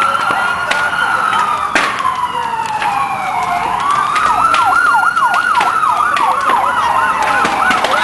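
Two emergency vehicle sirens: one in a slow wail that rises and falls about every four seconds, and a second in a fast yelp of short falling sweeps through the middle. A single sharp click about two seconds in.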